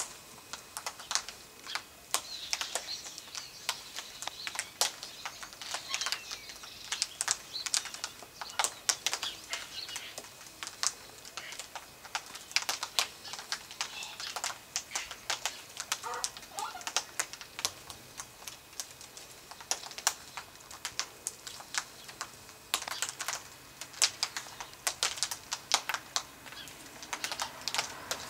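Yellow-tailed black cockatoos feeding in a tree, their beaks cracking and snapping at twigs and seed pods: an irregular run of sharp clicks and cracks, several a second.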